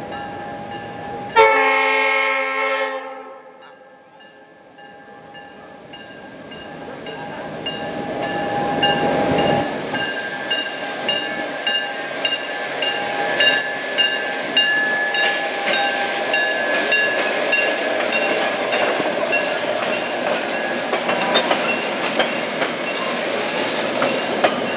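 Diesel locomotive's horn sounds one blast of several notes together about a second in, then the excursion train approaches and passes: the locomotive's engine noise builds to a peak about ten seconds in, followed by the passing coaches' wheels clicking over rail joints about twice a second.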